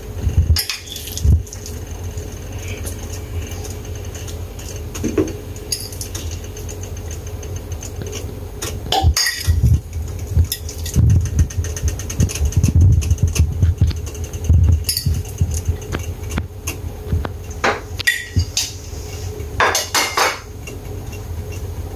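A spoon clinks and scrapes against a nonstick frying pan and a dish as corned beef is spooned into beaten eggs. There are scattered sharp clinks and knocks: a couple about a second in, one near the middle, and a quick cluster near the end, with a few dull thuds in between.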